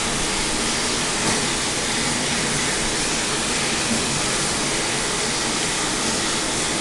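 Steady, even hiss of background noise with no breaks or changes.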